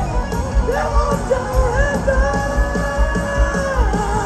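Hard rock band playing live through a large PA: a high, yelled lead vocal line held for about two seconds in the middle, over guitars and a steady driving drum beat.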